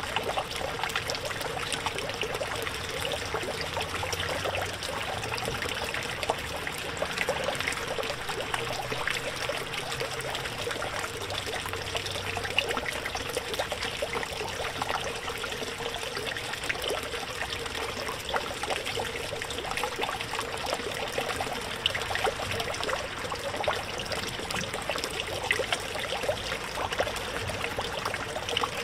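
Water from a small garden-pond fountain pump trickling and splashing steadily into the pond, with a faint steady hum underneath.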